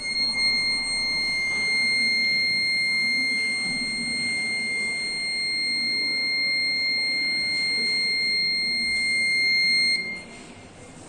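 Arduino motion-alarm buzzer sounding one continuous high-pitched tone, which cuts off abruptly about ten seconds in.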